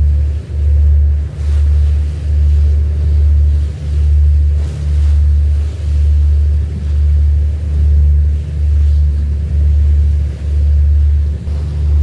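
Small boat's engine running at a steady low drone that swells and dips about once a second, with faint water and wind hiss.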